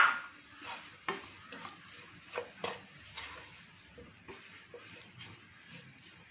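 A spoon stirring and scraping the chicken, vegetable and spice filling in a frying pan, with a light sizzle underneath. The strokes come irregularly, with one loud scrape right at the start.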